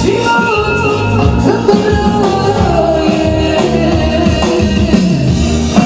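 Loud dance music with a singing voice and instruments, playing without a break.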